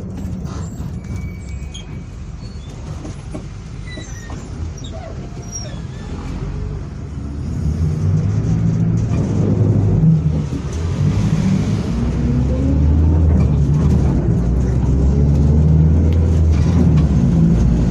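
Mercedes-Benz OF-1722M city bus engine running quietly at first, then working harder and louder from about seven seconds in, its note rising and falling as it pulls.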